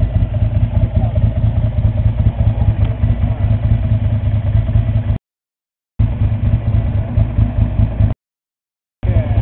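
Ducati 400SS Supersport's air-cooled Desmodue V-twin idling steadily. The sound cuts out completely twice, about five and eight seconds in.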